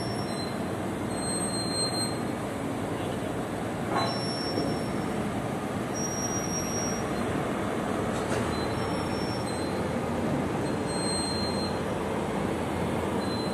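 A lattice-boom harbour crane's machinery runs steadily while it hoists an empty shipping container, with one sharp knock about four seconds in.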